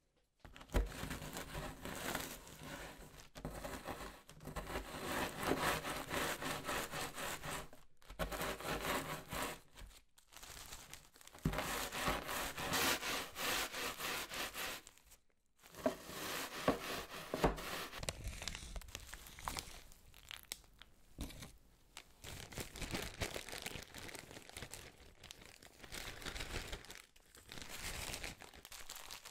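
Digestive biscuits being crushed by hand, a crinkling, crunching sound in bursts a few seconds long with short pauses between.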